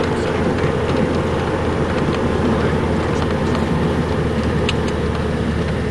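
Steady engine drone and travel noise of a moving vehicle, heard from inside its cabin.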